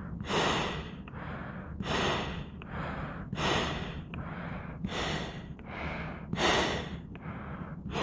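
A man breathing out hard through a silicone half-mask respirator: five forceful exhalations about a second and a half apart, each a loud rush of air out through the mask's exhalation valve, with softer breaths in between.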